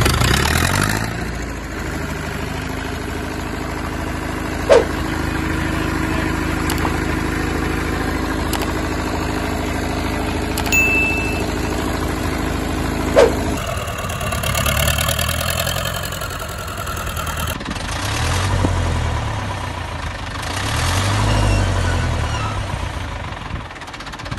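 Zetor 5711 tractor's diesel engine running just after starting, idling steadily for the first half. About halfway through the sound changes and the engine note rises and falls in swells, with a couple of sharp clicks before that.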